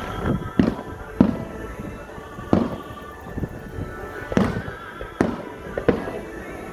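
Aerial fireworks shells bursting: a string of about eight sharp booms at uneven intervals, each with a short echoing tail, over music playing in the background.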